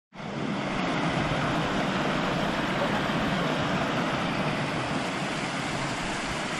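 Small rocky stream rushing over stones and little cascades: a steady, even rush of water.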